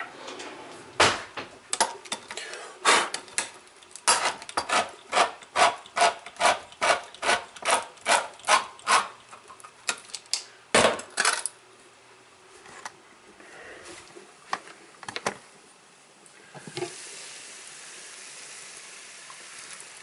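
Handheld crank can opener cutting round the lid of a tin can: a steady run of clicks, about two or three a second, for some ten seconds, then stopping. Near the end a steady sizzling hiss from a pan of vegetables on the stove comes in.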